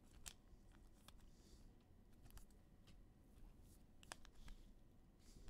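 Near silence with faint, scattered clicks and ticks of trading cards being handled, as cards are slid off a stack and flipped between the fingers.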